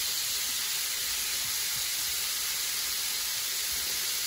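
King prawns frying in olive oil in a frying pan, a steady sizzle.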